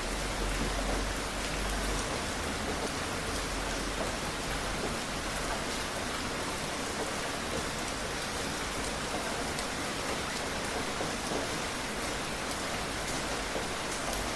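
Steady rain falling, a dense hiss of drops hitting a surface, with a low rumble underneath in the first couple of seconds.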